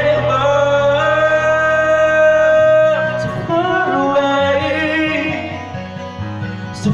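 A man singing into a microphone over an instrumental accompaniment. He holds one long note for the first three seconds or so, then moves through shorter phrases that fade somewhat near the end.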